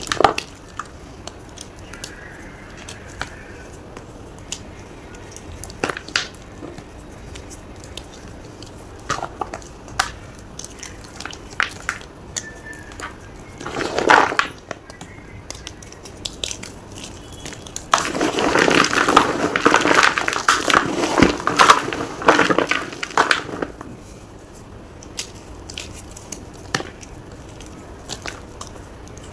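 Gym chalk being crushed and crumbled. There are scattered sharp cracks, a short louder burst of crunching about halfway through, and then about five seconds of dense, loud crunching.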